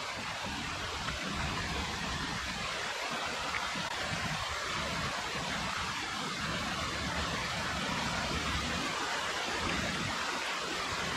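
Shallow, fast-running creek rushing over rocks: a steady hiss of moving water, with an uneven low rumble underneath.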